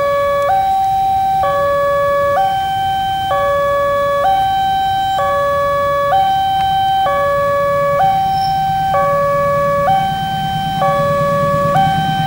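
Railway level-crossing warning alarm sounding: an electronic two-tone siren alternating between a lower and a higher note, each held about a second. In the last couple of seconds a low rumble grows beneath it as the diesel locomotive approaches.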